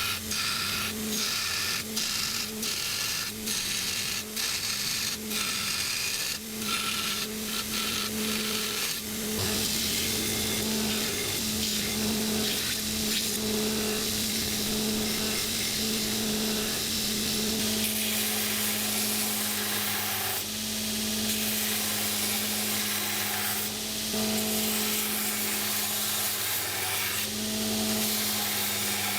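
A power tool running steadily in a metal shop, with a rhythmic series of sharp strikes through roughly the first third, then a continuous grinding, rubbing noise.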